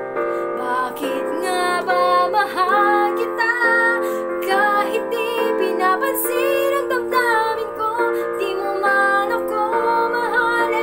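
A woman singing a Tagalog love ballad over a karaoke instrumental backing track, her voice bending through runs between long held notes over steady chords.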